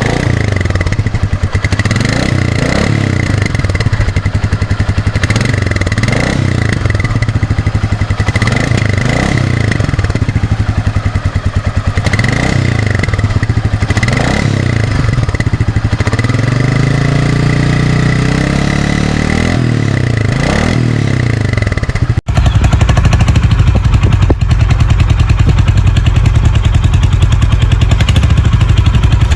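Exhausts of a Royal Enfield Meteor 350 and a Honda H'ness CB350, both single-cylinder 350 cc motorcycles, heard one after the other. The first engine idles and is revved in quick throttle blips about every second or two, then given one longer rev. About 22 seconds in, the sound cuts to the other bike idling steadily and more loudly.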